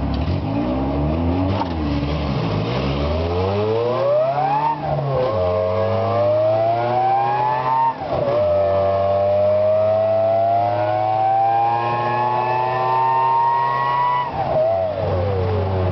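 VW Gol 1.6 four-cylinder engine through a stainless-steel exhaust with a butterfly valve, accelerating hard through first, second and third gear. The engine note climbs, drops at a gear change about five seconds in, climbs again, drops at a second change about eight seconds in, then climbs slowly for a long pull before falling as the throttle is lifted near the end.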